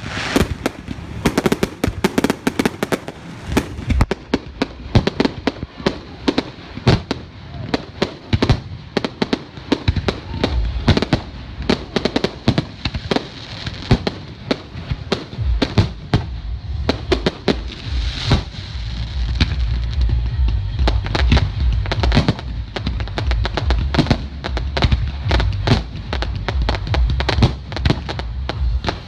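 Aerial fireworks bursting in rapid succession, many sharp bangs and crackles. About halfway through the bursts thicken into a near-continuous deep rumble of overlapping explosions.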